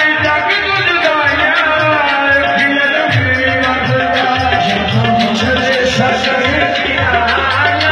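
Loud live music with steady drumming and a singing voice over a melody.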